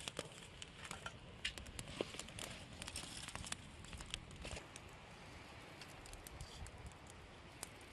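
Faint, scattered crackling and rustling of dry straw and thin twigs as a small kindling fire catches and is tended by hand. The clicks come thick at first and grow sparser after about four seconds.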